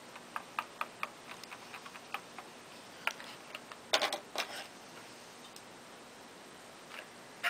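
Wooden popsicle stick tapping and scraping against a clear plastic bowl as thick dye paste is stirred: a run of light clicks over the first couple of seconds, a few louder knocks about four seconds in, then mostly quiet.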